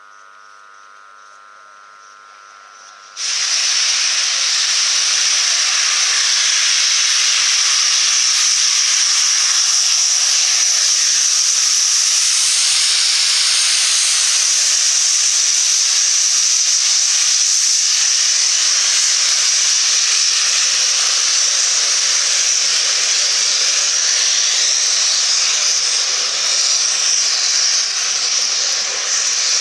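LNER A1 Peppercorn steam locomotive 60163 Tornado letting off steam. A faint steady tone comes first, then about three seconds in a loud, steady hiss of escaping steam starts suddenly and carries on, wavering a little near the end as the train moves past.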